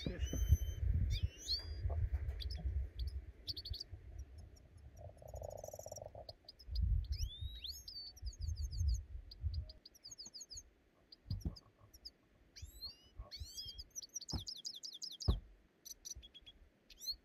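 Small birds chirping and twittering again and again in short high calls and trills, over low thumps and scraping from a long-handled shovel on a packed-earth roof. There are a few sharp wooden knocks near the end.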